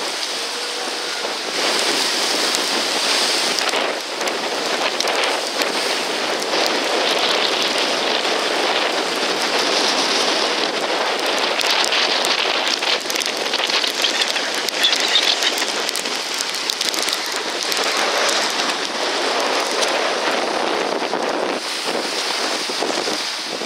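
Tropical-storm rain and wind: a steady rushing hiss of driving rain, with a constant fine spatter of drops.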